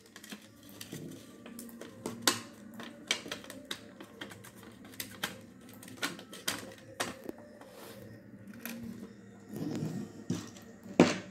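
Irregular light clicks and taps of a plastic switch board and wiring being handled and set down on a wooden table, with a louder knock near the end.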